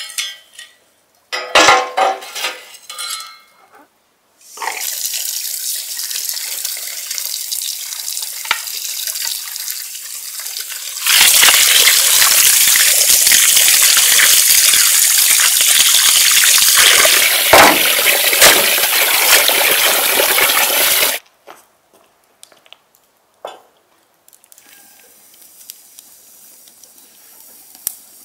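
Running water pouring onto raw goose pieces in a bowl as hands rub and rinse the meat: a gentler stream for several seconds, then a heavier, louder flow for about ten seconds that cuts off suddenly.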